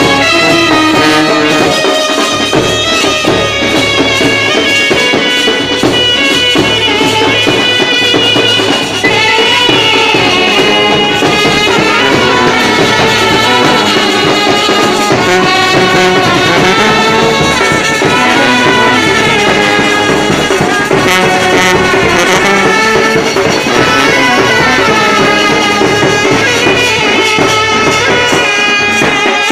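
An Indian street brass band playing loudly: saxophones carry a wavering melody over a sousaphone and other brass horns, with no pause.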